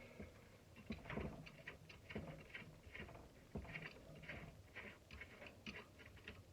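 Faint, irregular small clicks and scrapes, roughly one or two a second, of a makeshift hand tool working at a shop vacuum's plastic and metal parts as it is taken apart.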